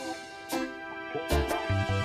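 Background music: held instrument notes over a bass line, with a few drum hits, quieter for the first half second.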